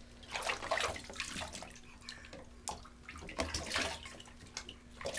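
Bathwater splashing and sloshing in short, irregular splashes as a baby plays with a plastic toy boat in the tub.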